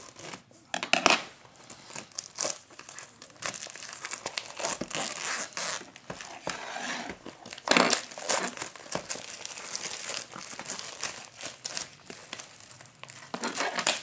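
Clear plastic shrink wrap being torn and peeled off a cardboard trading-card box, crinkling irregularly, with louder crackles about a second in and again near eight seconds.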